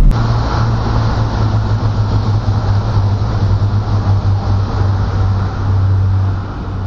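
Passenger train running across a bridge: a steady rumble of wheels on rails with a low hum. The rumble eases off near the end as the last carriage passes.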